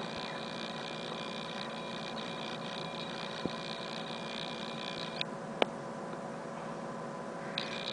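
Steady electrical room hum with a high whine that drops out about five seconds in and comes back near the end; two faint clicks.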